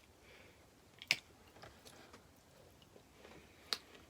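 Eating sounds: two sharp cracks, one about a second in and one near the end, with a few softer clicks between, from biting into and breaking food.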